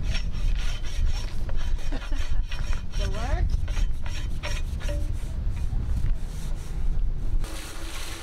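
A bottle brush on a wooden pole scrubbed back and forth inside a steel pipe with soapy water, to clean thread-cutting oil out of it. The strokes rub and rasp, with a few short squeaks, and wind rumbles on the microphone. Near the end a garden hose starts spraying rinse water through the pipe.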